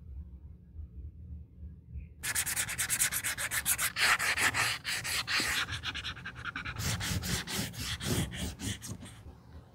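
A small sanding pad is rubbed in quick back-and-forth strokes along the black edge paint of a coated-canvas card holder, giving a rapid, scratchy rasp. The rubbing starts about two seconds in and stops shortly before the end.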